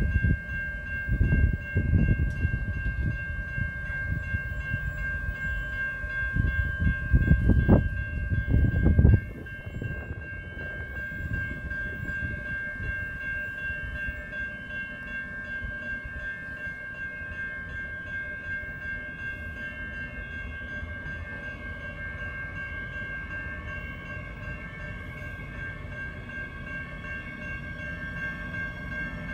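An Adelaide Metro electric multiple unit approaches a station platform, with a steady high-pitched whine throughout. A heavy, uneven low rumble fills the first nine seconds or so, then stops abruptly.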